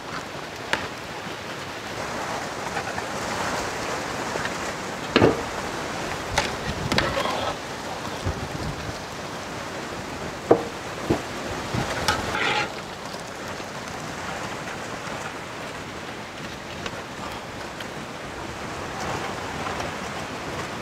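A steady rushing noise, with several sharp clinks and knocks in the first half as a steel slotted spoon strikes the aluminium pot and steel plate while boiled mutton legs are lifted out of the steaming broth.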